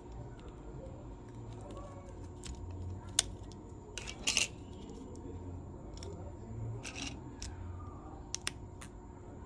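Small sharp clicks and taps of fingers working an opened smartphone's plastic midframe, battery and display flex cable, scattered through with the loudest cluster about four seconds in, over a low steady hum.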